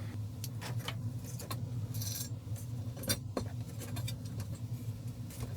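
A mounting screw with washers being threaded into a steel dash mount: scattered small metallic clicks and scrapes, a sharper click about three seconds in, over a steady low hum.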